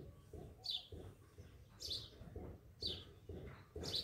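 A bird chirping in the background, a short high falling chirp about once a second, the loudest sound. Underneath, a spatula stirs thick cake batter in a glass bowl, a soft scraping with each stroke.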